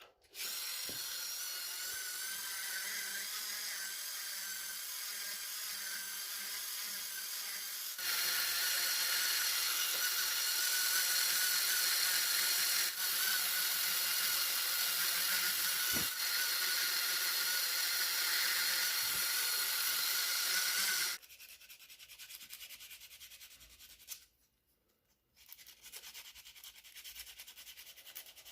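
A Dremel-type rotary tool running with a steady high whine, louder about a third of the way in as it works the wood, then cutting off. Quieter rubbing and scraping on wood follows, with a short pause.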